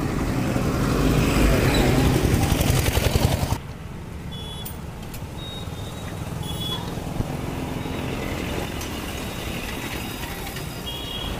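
A motor vehicle passing close by, growing louder over the first three seconds and then cut off suddenly, followed by steady road-traffic noise with a few short, high beeps.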